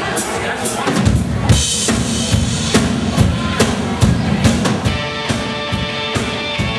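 Live rock band starting a song: a drum kit beat with kick and snare. Bass and electric guitars come in about a second in, and sustained chords join about five seconds in.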